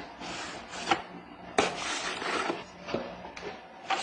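Handling noise as a trolling motor is moved about in its cardboard box: two stretches of rustling and scraping, with a few short knocks, the loudest right at the end.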